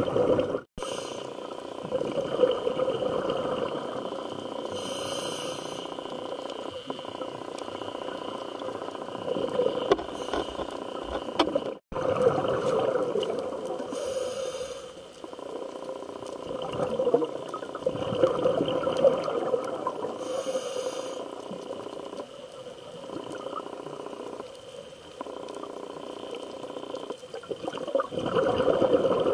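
Scuba diver's regulator breathing heard underwater through a sealed camera housing: slow, muffled breaths that swell and fade every few seconds, with short hissy rushes of exhaled bubbles. The sound cuts out for an instant twice, where clips are joined.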